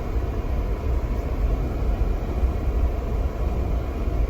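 A car driving along a road: a steady low rumble of tyres and engine.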